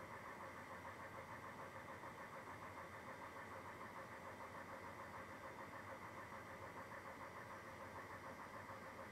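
A steady, quiet mechanical hum with a slight regular pulse, like a motor or pump running.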